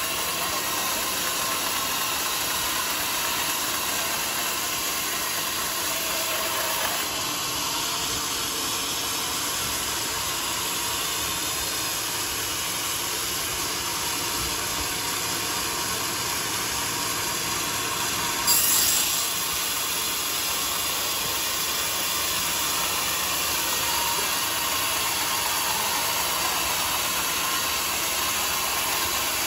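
Large band sawmill cutting through a teak log, a steady, even sawing noise. About two-thirds of the way through there is a brief, sharper burst that is louder than the rest.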